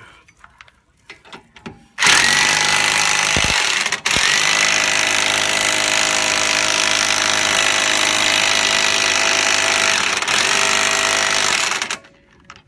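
Electric impact wrench running on a lug nut at the front wheel hub for about ten seconds, with a brief break about two seconds after it starts. The nut is drawing a new wheel stud into the hub.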